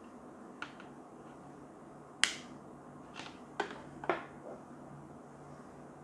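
A series of sharp clicks from the inline cord switches of LED T5 tube lights as they are switched off. The loudest comes about two seconds in, and three more follow in quick succession between three and four seconds in.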